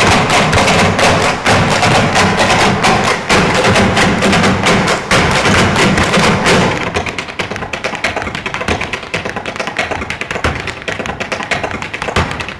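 Male Irish dancers in hard shoes drumming heel and toe taps on a stage floor in unison, a dense rapid rhythm meant to sound like thunder. The stamping gets quieter and lighter about seven seconds in.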